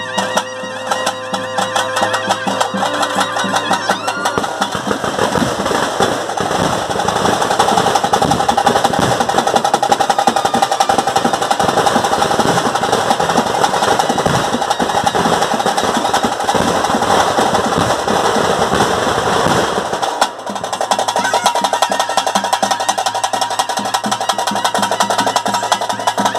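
Ritual music for a spirit-worship kola: fast, dense drumming under a wind instrument holding long notes. The drumming grows fuller and louder a few seconds in, then thins briefly about twenty seconds in before carrying on.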